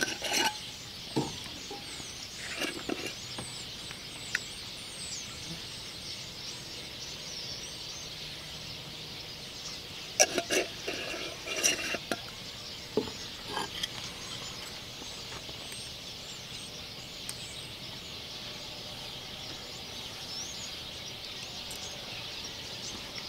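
Small birds chirping in a dense, continuous chorus. Scattered clicks and rattles come from a seasoning shaker being handled over a plate, with the loudest cluster about ten to twelve seconds in.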